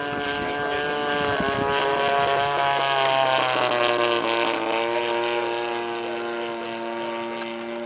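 30cc two-stroke gas engine of an Extra 260 radio-controlled model plane running at speed in a flyby: it grows louder to a peak about three to four seconds in, drops in pitch as the plane passes, then runs on at the lower pitch, fading a little.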